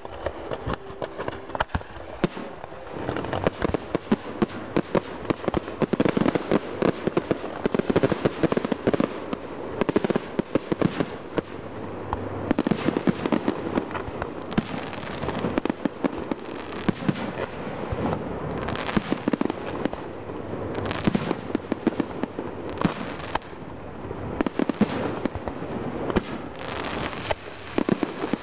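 Fireworks display: a dense, continuous run of pops and bangs from shells and mines bursting, many per second, with louder reports standing out every second or so.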